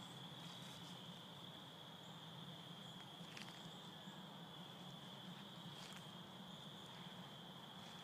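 Faint, steady insect chorus: a continuous high-pitched trill, with a low hum beneath and a couple of faint clicks about three and a half and six seconds in.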